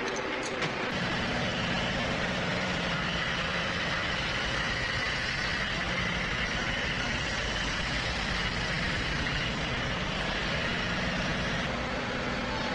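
Humvee's diesel V8 engine running steadily as the vehicle moves slowly at low speed. A couple of light knocks are heard in the first second.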